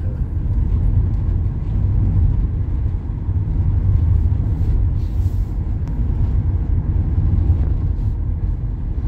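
Steady road and engine rumble heard inside a moving car's cabin.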